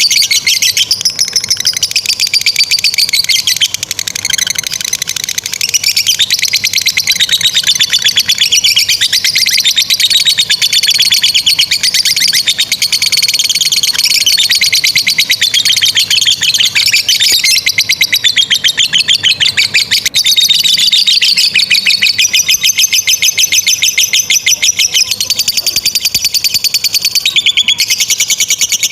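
Lovebirds singing "ngekek panjang": a long, unbroken, rapid high-pitched chattering trill.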